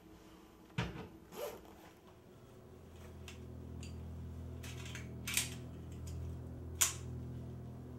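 Handgun being handled, giving a handful of sharp metallic clicks spread across the seconds, the loudest about a second in and near the end. A low drone swells in underneath from about a third of the way through.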